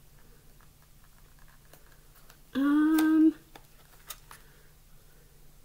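A short, steady hummed 'mm' from a woman's voice, a little under a second long, midway through. Around it are faint clicks and light taps of small packaged items being handled.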